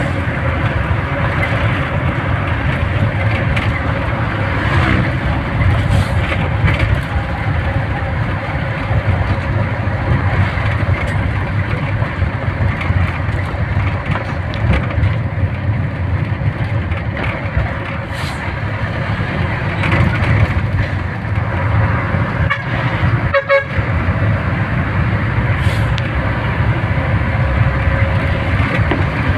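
A vehicle travelling along a road, giving steady engine and road noise, with a brief horn toot about 23 seconds in.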